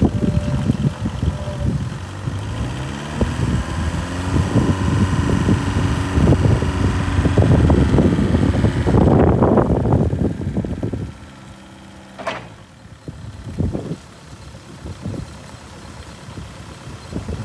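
Linde H35 diesel forklift engine revving with rising and falling pitch while the mast hydraulics lift the forks, then dropping back to a steady, quieter idle about eleven seconds in.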